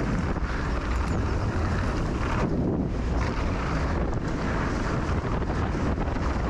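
Wind buffeting the camera microphone and e-mountain bike tyres rolling over a dirt trail while riding: a steady rumble with no break.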